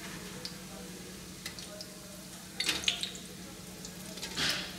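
Ring doughnuts (roscos) frying in olive oil in a frying pan, a steady sizzle. A metal wire spider and skimmer clink against the pan a few times about one and a half to three seconds in, and the sizzle swells briefly near the end.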